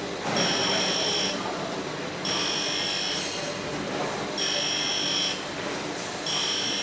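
Bench grinder running, with work pressed against the wheel in repeated passes: about every two seconds a steady high whine lasts roughly a second over the continuous grinding noise, four times.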